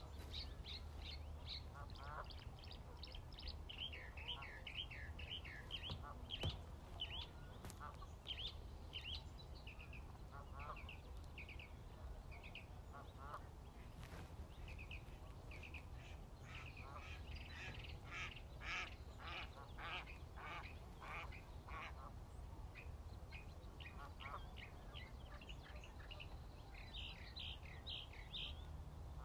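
Birds chirping in quick, short calls again and again, busiest in the second half, over the steady low rush of a shallow creek. A few brief splashes, one about halfway through as a large carp thrashes past in the shallows.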